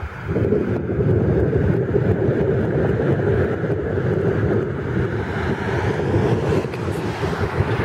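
Thunderstorm wind gusting over the microphone: a loud, steady low rush of noise that swells up a moment after a brief dip at the start.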